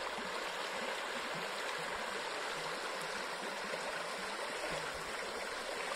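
Shallow river running over stones in a riffle: a steady rush of water.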